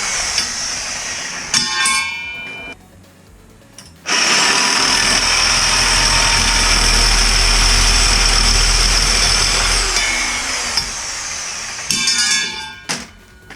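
A handheld electric power tool running at speed in two stretches, with a short stop about three seconds in. Near the end it winds down into a brief clatter.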